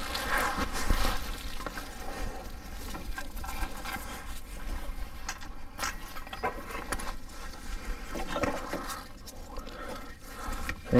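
Ribbed rubber serpentine belt of a 3.6 Pentastar V6 being worked off its pulleys by hand: irregular scrapes, rubs and light knocks, with the tension released. A faint steady hum runs underneath.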